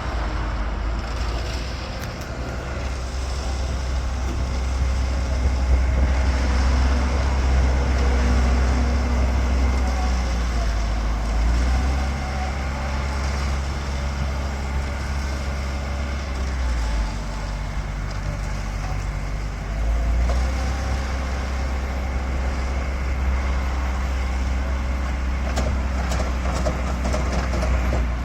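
Diesel engine of an AJAX Argo self-loading concrete mixer running under steady load. Its note shifts a few times, about twelve, seventeen and twenty seconds in.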